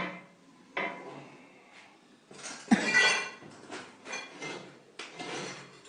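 Hard clinks and knocks of a plumber's tools on a ceramic sink: a sharp strike at the start, another about a second in, and a heavier knock with a low thud near three seconds, followed by a brief clattering rattle and a further knock near five seconds.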